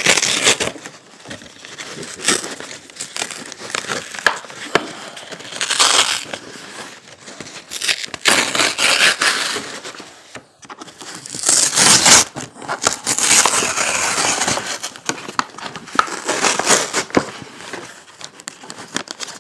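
Brown paper shipping envelope being crinkled and pulled open by hand, the paper rustling and tearing in loud, irregular bursts.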